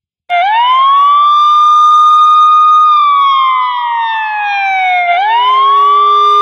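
Siren wail opening a wrestling entrance theme. It starts abruptly, rises and holds a steady high pitch, falls slowly for about two seconds, then swoops back up and holds again, with a low steady tone entering under the second rise.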